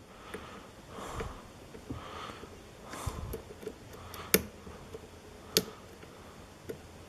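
Quiet lock picking of a pin-tumbler lock: faint breathing through the nose, with two sharp clicks from the pick working the pins a little past halfway and a fainter tick near the end.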